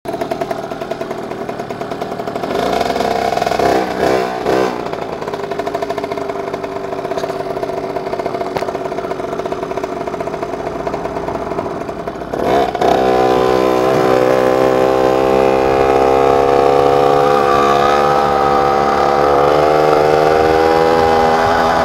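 Dadalt MR 60 mini bike's two-stroke engine running, revved up and down a few times about three to four seconds in. About halfway through it gets louder and runs at a steady, strong note as the bike rides along.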